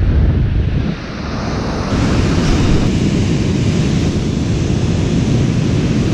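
Wind buffeting the microphone over the steady wash of ocean surf, dipping briefly about a second in.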